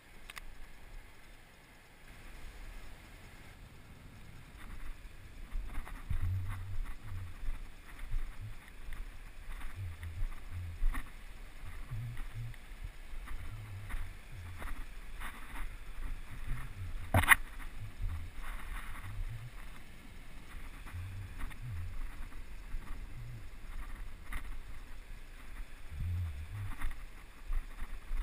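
Camera handling noise while someone walks through undergrowth carrying it: irregular low thumps of footfalls and jostling, with faint rustling of brush, starting a few seconds in. A sharp knock against the camera about halfway through is the loudest sound.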